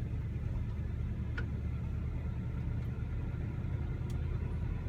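1971 Oldsmobile Cutlass S engine running at a low, steady idle while the car coasts slowly: a low purr.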